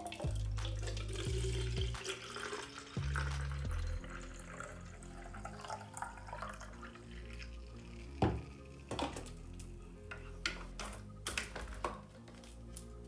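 Clove water pouring in a thin stream from a plastic jug into a plastic bottle, a steady trickling splash through the first half. Then several sharp plastic clicks and knocks near the end as a spray-trigger top is fitted to the bottle. Background music runs underneath.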